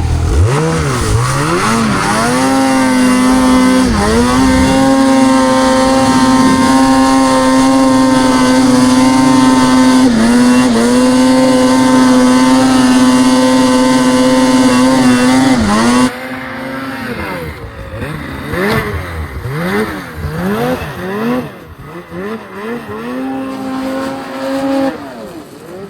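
Ski-Doo Summit 850 two-stroke snowmobile engine revving up and holding high, steady revs, dipping briefly twice. About two-thirds of the way through it turns suddenly quieter, and the revs rise and fall over and over.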